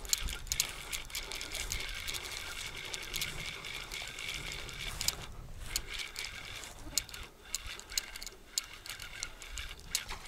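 Spinning reel being cranked to retrieve a lure, its gears whirring with irregular ticking clicks. The whir stops about five seconds in, and scattered clicks go on after it.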